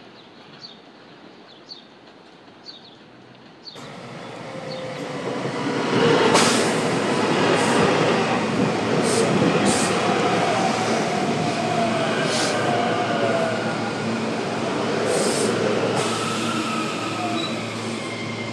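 Faint chirps, then about four seconds in a SEPTA electric multiple-unit commuter train passing close by: a steady rumble of wheels on rail with irregular sharp clicks and a few faint gliding whines.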